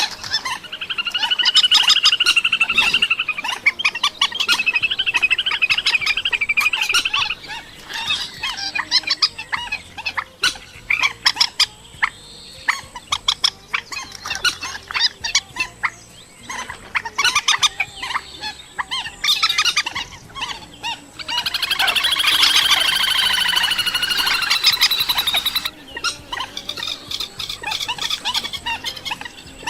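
Purple swamphen calling: fast runs of short, clicking cackle notes, broken by two longer stretches of loud, harsh, nasal calls, the first about a second in and the second about two-thirds of the way through.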